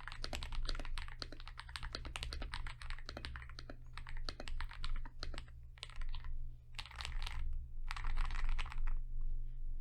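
Fast typing on a CIY Gas67 mechanical keyboard with Akko Cream Yellow V3 linear switches, lubed with Krytox and dampened with foams and a tape mod. A dense run of keystrokes thins out about halfway, then two quick flurries of keys follow near the end.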